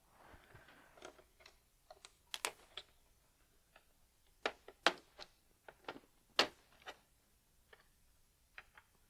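Laptop keyboard and palm-rest parts being handled, giving a soft rustle and then a string of irregular light clicks and taps, a few of them sharper.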